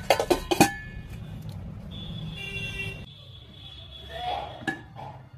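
Stainless steel lid set down onto a steel pot: a quick run of ringing metal clinks in the first second, over a low background rumble.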